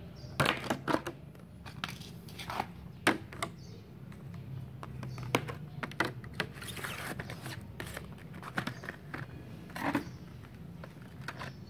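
Stiff clear plastic blister packaging being handled and pressed back over a packaged water pump plier: irregular crinkles and sharp plastic clicks, with a longer crackling rustle about seven seconds in.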